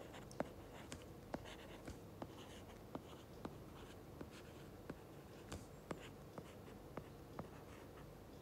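Faint, irregular taps and clicks of a stylus tip on a tablet's glass screen during handwriting, roughly two a second.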